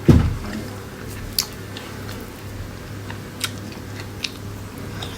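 A person eating and chewing. There is a low thump just after the start, then three sharp light clicks spread through the rest, over a steady low hum.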